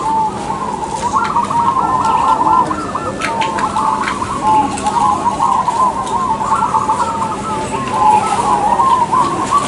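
Several zebra doves (perkutut) cooing at once in a dense, overlapping chorus of repeated rhythmic coo phrases.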